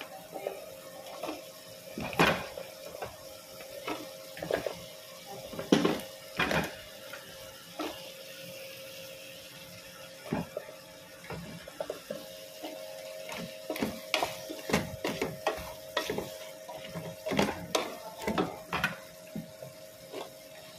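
Wooden spoon stirring and knocking against an aluminium cooking pot, over a soft sizzle of adobo sauce frying with cut okra. A steady hum runs underneath, dropping out for a few seconds near the middle.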